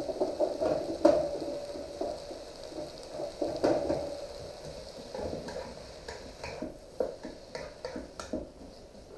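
Vegetables sizzling in a wok over high heat, with scattered knocks and clatter as asparagus spears are laid on a metal baking sheet. In the second half a wooden spoon scrapes and taps as it stirs the wok.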